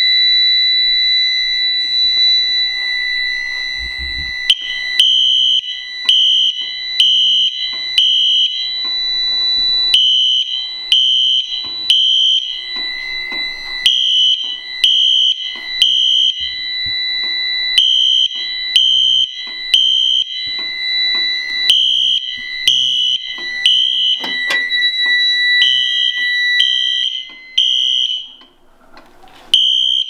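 Fire alarm in alarm: a Wheelock Exceeder horn strobe sounding the code-3 temporal pattern, three half-second horn blasts and a pause, over and over, starting about four seconds in. Under it a steady high electronic tone sounds from the start and stops a few seconds before the end.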